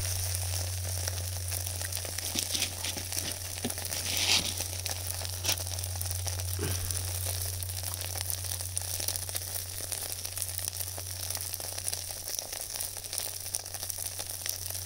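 Stir-fried vegetables sizzling in an aluminium tray over a charcoal shichirin, with scattered crackles and clicks and a louder brief noise about four seconds in.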